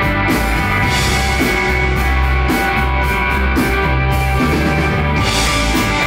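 A live rock band jamming loudly: electric guitar holding ringing chords over bass and a drum kit keeping a steady beat, with cymbals washing up about a second in and again near the end. It is an instrumental stoner/desert-rock jam with no vocals.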